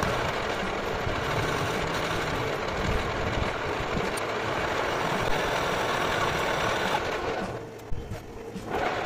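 Metal lathe running with a brazed-tip tool cutting the end of a spinning steel bar: steady machining noise that drops for about a second near the end.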